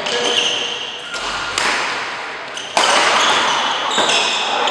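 Badminton rackets striking a shuttlecock in a fast doubles rally: several sharp hits, one every second or so, each ringing on in the echo of a large hall.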